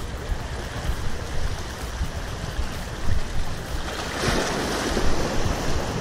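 Small sea waves washing against the rocky shore, with wind buffeting the microphone in gusts; a louder wash of water comes about four seconds in.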